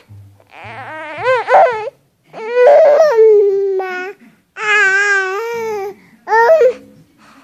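Baby crying in four wails, the middle two long and held at a steady pitch, the last one short.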